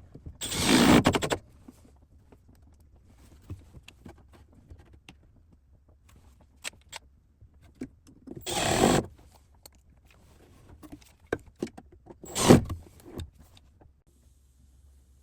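Cordless drill-driver running in three short bursts of about a second each, driving screws that fasten a ball-bearing drawer slide to the cabinet face frame, with light handling clicks between.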